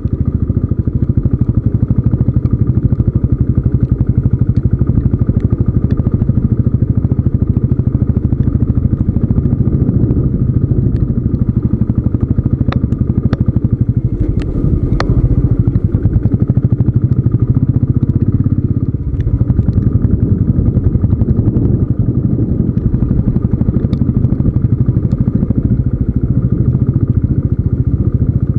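Royal Enfield Classic 350's single-cylinder engine running steadily as the motorcycle rides over a dirt track, with a few sharp clicks and knocks around the middle.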